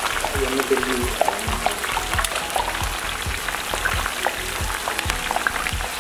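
Karasev dough pressed by hand through a perforated ladle into a wide pan of hot oil. The oil sizzles and crackles steadily as the gram-flour strands fry.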